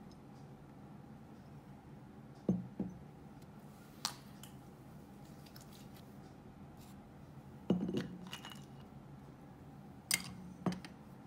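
Skincare bottles knocking and clinking as they are set down on and picked up from a hard shelf: about six short, sharp knocks, some in close pairs, over a low steady hum.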